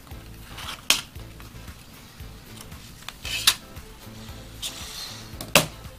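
Tweezers and a thin metal LCD shield plate clicking and scraping as the shield is pried off a phone display and set down, with three sharper clicks spread through, over quiet background music.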